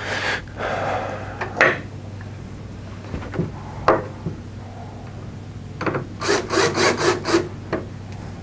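Wood rubbing and scraping as a wooden bifold door is held and fitted against a wall-bed cabinet, with a couple of sharp knocks. Near the end comes a quick run of about six scraping strokes.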